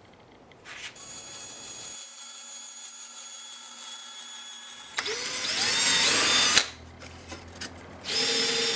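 A scroll saw runs steadily as it cuts thin plywood along a traced outline. About five seconds in, a louder power tool spins up with a rising whine and stops abruptly. Near the end a power tool runs again at a steady pitch.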